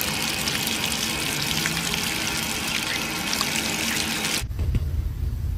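A jet of water spraying and splashing onto a dog's fur and the concrete under it, a steady hiss that cuts off sharply about four seconds in. A low rumble follows.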